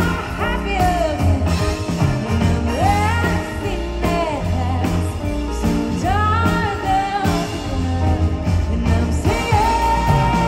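Live band music with a woman singing over it, her voice sliding up and down through the melody and holding one long note near the end.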